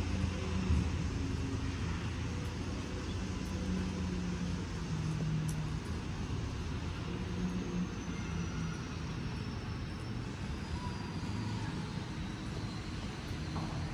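Steady low engine rumble in urban street ambience, with pitch that shifts a little; a faint high whine falls slowly over the second half.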